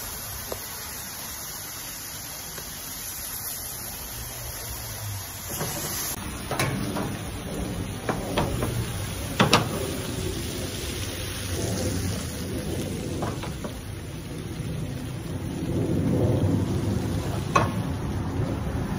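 Pork and chicken sizzling in a skillet on a gas grill's side burner. In the second half, tongs clink and scrape against the pan several times as the meat is turned.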